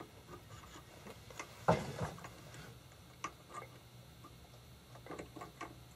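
Small metal parts clicking and tapping as a piston is worked by hand onto a two-stroke moped engine's connecting rod, with one sharper knock a little under two seconds in.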